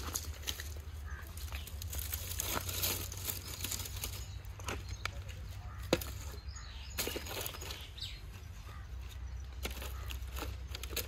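Dry twigs and wooden planks rustling and knocking as they are stacked by hand into a brick hearth, with scattered snaps and clicks and one sharper knock about six seconds in, over a steady low rumble.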